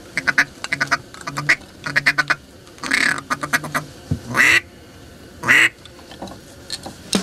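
Handheld duck call blown as duck quacks: quick runs of short quacks for the first couple of seconds, then three longer single quacks about a second apart.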